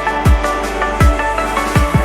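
Electronic music track with a pitched synth line over a deep kick drum that drops in pitch on each beat, the kicks coming faster near the end.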